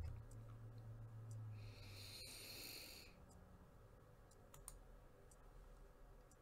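Near silence: room tone, with a faint low hum for the first two seconds, a brief soft hiss about two seconds in, and a few faint clicks.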